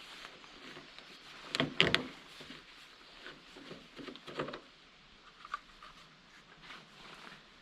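A few sharp knocks and clunks of objects being handled, the loudest pair about two seconds in, with lighter taps a couple of seconds later.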